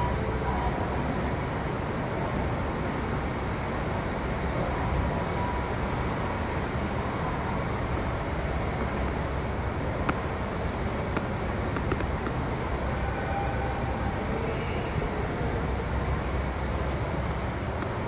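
Blizzard wind blowing steadily, with a low rumble of wind buffeting the microphone.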